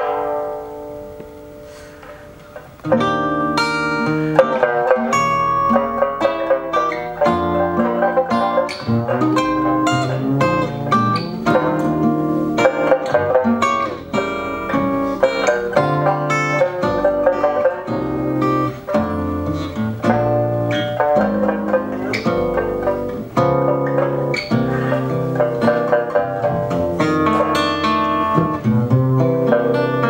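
Live jazz trio of sanxian (Chinese three-string lute), archtop acoustic guitar and plucked double bass. A lone plucked note rings and fades, then about three seconds in all three come in together and play on.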